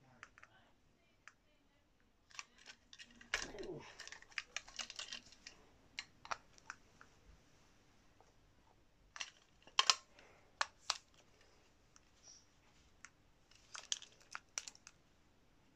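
Irregular clicks, taps and crinkles of hard plastic being handled, with a denser cluster of clatter about three to four seconds in and sharp clicks around ten seconds: a plastic toy train engine and its packaging being handled.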